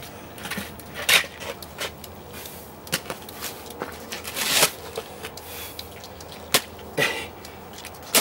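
Long-handled shovel scraping and scooping wet mud off a path: a series of separate scrapes and knocks a second or two apart, with one longer scrape about halfway through.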